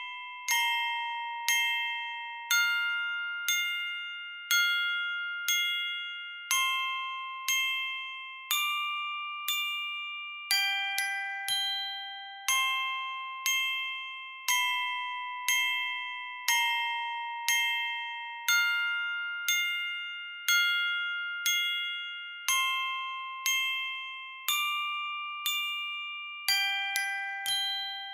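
Slow, gentle music on bell-like mallet percussion, like a glockenspiel or music box: chords struck about once a second, a few in quicker pairs, each ringing and fading before the next.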